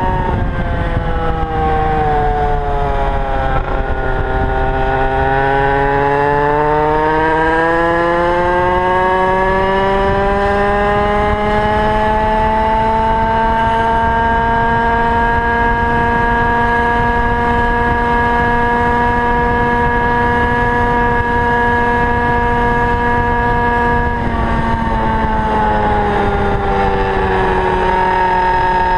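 Small two-stroke engine of a Goped gas scooter under way. Its pitch drops for a few seconds, climbs steadily back up and holds high, then drops and eases off with about five seconds left. It runs on a 25:1 fuel-oil mix, and the owner asks whether it sounds too rich.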